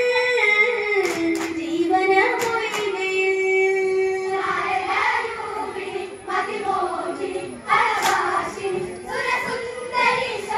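Girls and women singing a Malayalam Onam kali folk song: a lead girl's voice on long held notes through a microphone, then the group joining in from about four seconds in. A few sharp hand claps mark the beat.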